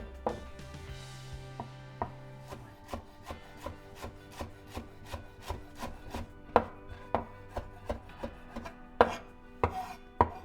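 Knife chopping food on a cutting board: a steady run of cuts, about three a second, with a few harder strikes, over background music.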